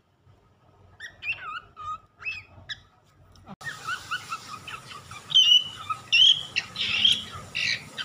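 Four-month-old lutino cockatiel whistling and chirping: a string of short, gliding whistle notes that starts about a second in and grows louder and busier in the second half.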